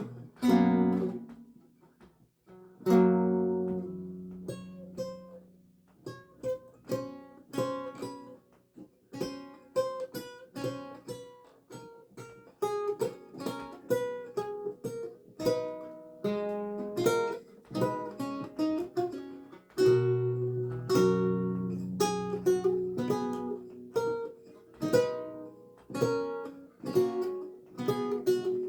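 Solo lute playing: plucked notes and chords ringing on, with full strummed chords about half a second and three seconds in and again near twenty seconds, between runs of single picked notes.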